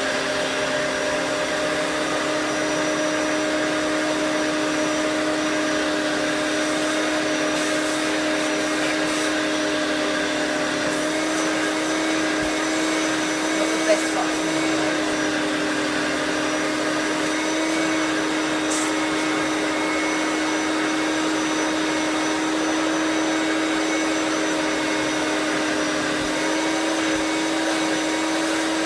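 Hoover Turbo Power Autoflex upright vacuum cleaner running steadily on its high speed setting: a constant motor hum and whine. Its pitch steps up slightly twice, and there is a single short click about halfway through.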